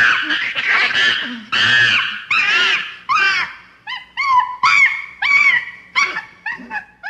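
Monkey screaming: a series of loud, high-pitched shrieks, long at first, then shorter calls that arch up and down in pitch and come more quickly from about four seconds in.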